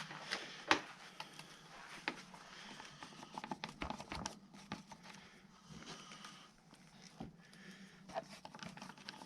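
Hands working with a screwdriver around a motorcycle's plastic dash panels: scattered clicks, taps and light rustling, with one sharper click under a second in.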